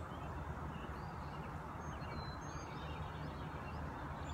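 Outdoor ambience: a steady low rushing background noise with scattered short, high bird chirps.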